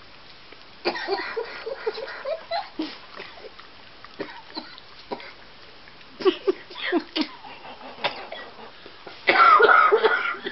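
Jack Russell terrier chewing sticky toffee: wet smacking and clicking of her jaws in three bursts, the loudest near the end.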